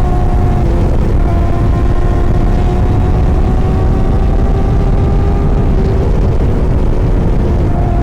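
Kawasaki ZX-10R's inline-four engine running at a steady, almost even pitch over a heavy low rumble, the pitch shifting slightly about a second in and again near six seconds.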